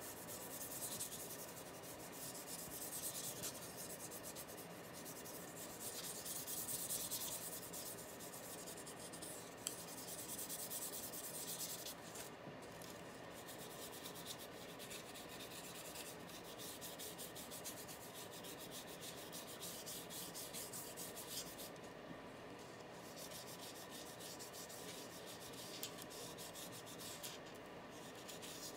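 Paintbrush bristles scratching acrylic paint across a sheet of Tyvek: a faint, steady rubbing made of many quick back-and-forth strokes.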